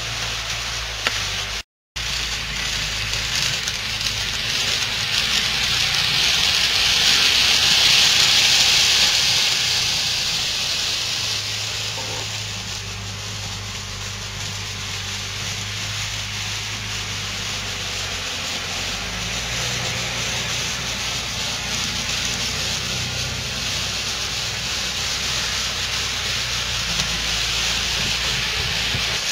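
Model trains running on an HO and N scale layout: a steady rolling hiss of wheels on the rails over a low motor hum. The hiss swells louder for a few seconds about a quarter of the way in, and there is a brief cut-out near two seconds.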